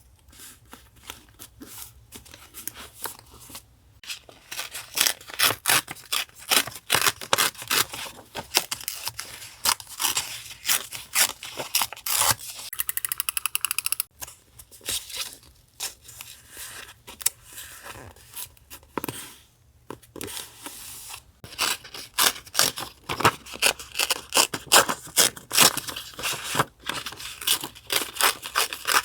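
Paper crafting sounds: scissors snipping and paper rustling and tearing in a run of short strokes, with a quick, even ripping sound lasting about two seconds around twelve seconds in.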